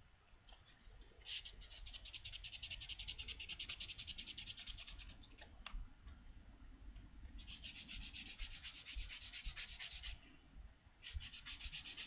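220-grit sandpaper scrubbing rust off a Stanley #64 spokeshave in quick back-and-forth strokes. It comes in three bouts, with a short pause about halfway through and another near the end.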